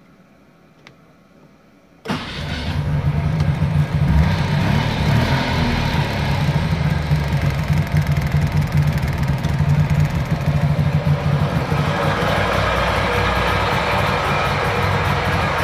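1962 Saab 96's three-cylinder two-stroke engine starting from cold after decades in storage: after a couple of quiet seconds it suddenly fires about two seconds in and runs steadily, its pitch rising and falling briefly a few seconds later. Heard first from inside the car, then from over the open engine bay, where it sounds brighter.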